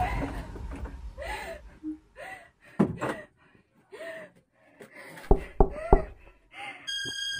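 A girl gasping in short, breathy breaths about once a second, with knocks on a door: one near three seconds in and three quick ones about five and a half seconds in.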